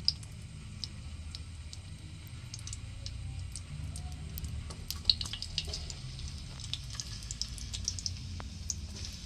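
Hot oil crackling and spitting in a metal wok, with scattered sharp pops over a steady low rumble. The crackling gets busier in the second half as sliced shallots go into the oil.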